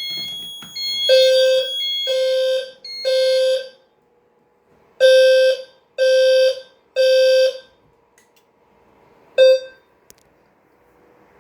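Fire alarm horns sounding in the temporal-3 evacuation pattern: three short blasts, a pause, three more, with a higher steady electronic tone over the first couple of seconds. One last short blast comes about nine and a half seconds in, then the alarm stops as it is silenced.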